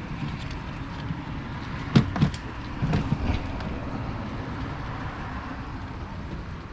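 Hands working plastic and rubber intake parts, pulling a grommet and handling pieces: a few sharp knocks and clicks about two seconds in and again around three seconds, over a steady low background rumble.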